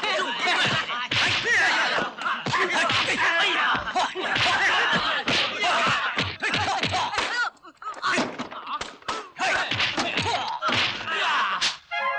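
Kung fu film fight sound effects: a rapid, nearly unbroken run of punch and slap impacts mixed with fighters' shouts and grunts, with a brief gap about seven and a half seconds in.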